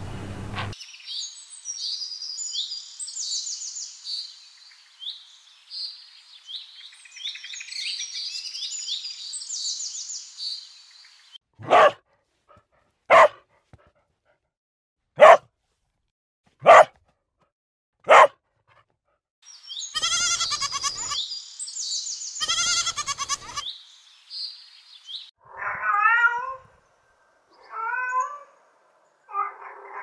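High-pitched bird chirping and twittering for about the first ten seconds, then a dog barking five times, roughly one bark every second and a half. A short burst of shrill chirping follows, and near the end a cat meows three times.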